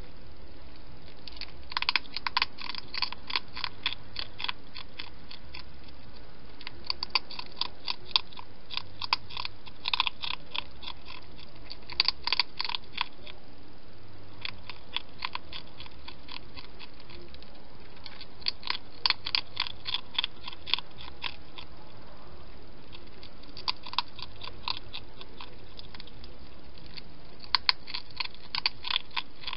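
A hedgehog eating from a bowl close to the microphone: rapid clicking chews, several a second, in bouts of a few seconds with short pauses between.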